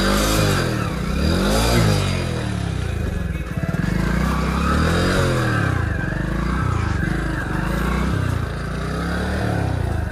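Small commuter motorcycle engine running while the bike is walked up a loose stony track, its revs rising and falling several times as the throttle is worked, with the bike slipping a lot on the loose ground.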